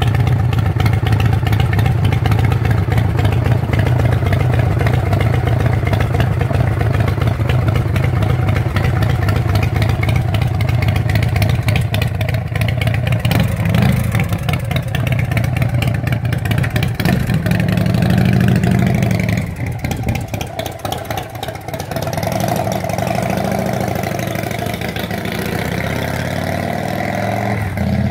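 Custom chopper's V-twin engine running with a steady low rumble, blipped up a couple of times around the middle. It then pulls away, and its sound drops and carries on more distant, rising and falling as it rides off.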